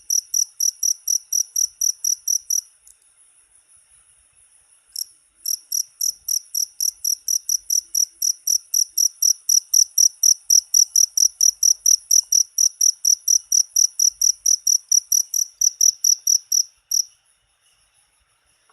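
Cricket chirping in a steady, even rhythm, about four to five high-pitched chirps a second. The loud chirping breaks off for a couple of seconds near the start, leaving a fainter trill, then resumes and stops near the end.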